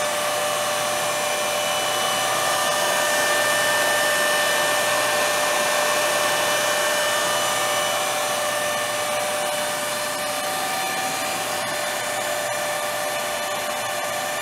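Karstens universal cylindrical grinder running: a steady machine hum with several high whining tones from its motors and hydraulic pump, rising slightly in level a few seconds in.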